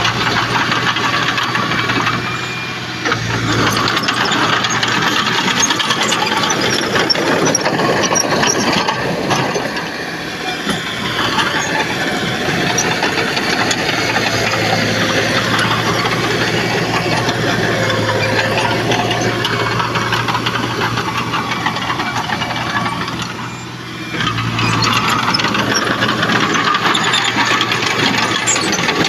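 Diesel engine of heavy earthmoving machinery running steadily at work, easing off briefly twice.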